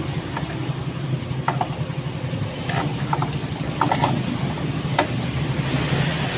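Small motorcycle engine idling steadily, with a few short metallic clicks.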